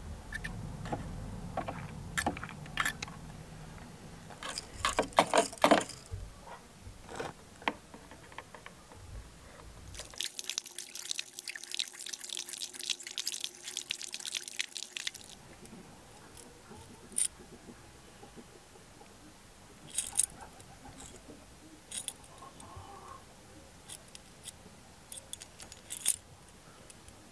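Small handling sounds of metal spoon-lure blades on a wire: light clicks and taps against a plastic bottle. About ten seconds in comes a stretch of dense liquid crackling lasting some five seconds, as the blades sit in the chemical polishing solution. A few sharp ticks follow near the end.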